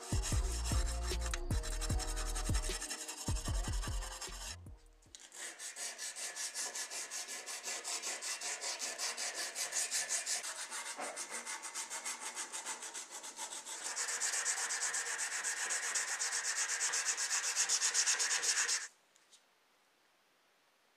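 Music with a heavy bass for the first few seconds. Then a sanding pad is rubbed back and forth on a bare metal model car body at about three strokes a second, louder in the later part and stopping abruptly near the end.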